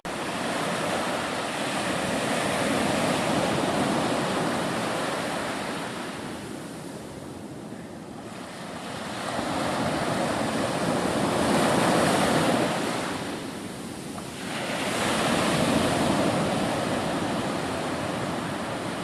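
Rushing noise of wind and choppy sea water around a kayak, with wind buffeting the microphone, swelling and easing in loudness a few times.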